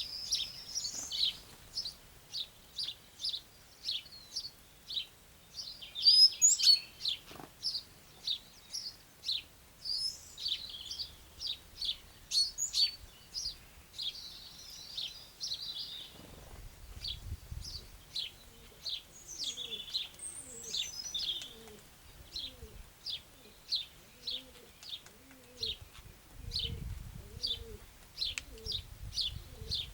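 Birds chirping: one bird repeats a short high chirp about twice a second throughout, with other bird calls over it. In the second half a run of faint low notes repeats quickly beneath them.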